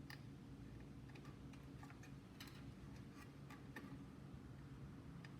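Faint, irregular small clicks and taps of hands working on PC parts while a case fan is fitted and its cable connected, over a low steady hum.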